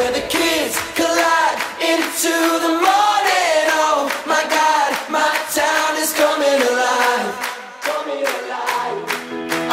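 Music: a song with singing voices over a steady beat, the low end dropping out for a moment near the end.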